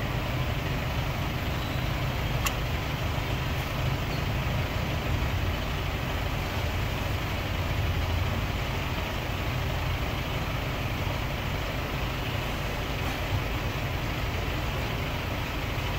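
Steady low rumble with a hiss over it, from a running vehicle engine.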